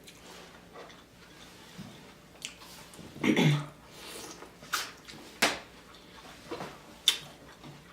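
Eating sounds from a seafood boil: a handful of separate wet smacks and chews, the longest and loudest about three seconds in.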